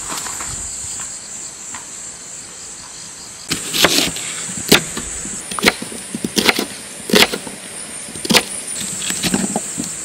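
Kitchen knife slicing an onion on a wooden cutting board: sharp, irregular knocks of the blade on the wood, about one a second, starting about a third of the way in. A steady high insect chirring runs underneath.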